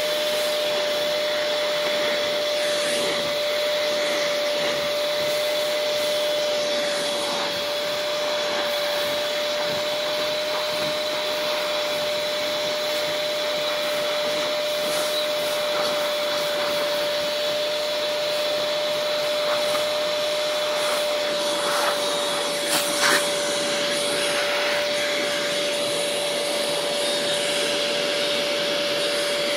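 Shop-vac running steadily with a constant whine, sucking sand from between dahlia tubers in a storage box. A few brief clicks come about three-quarters of the way through.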